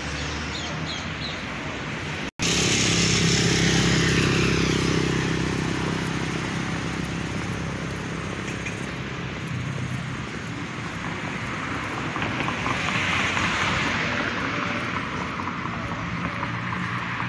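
Outdoor ambience of steady motor traffic. After a brief dropout about two seconds in, a low engine sound swells and slowly fades, and a broad rushing hiss rises and falls again near the end.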